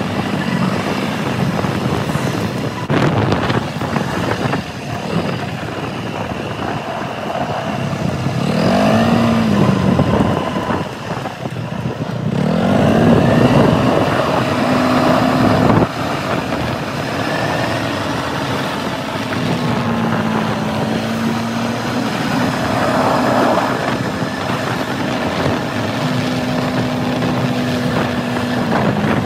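Kymco MXU 300 quad's single-cylinder four-stroke engine under way, its note swelling up and dropping back several times as the throttle opens and closes, over wind and road noise.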